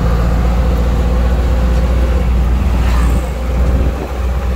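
A road vehicle's engine running steadily, a loud low drone that dips briefly about three seconds in.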